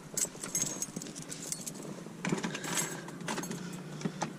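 Car keys jangling, with a scattered run of light metallic clinks and clicks.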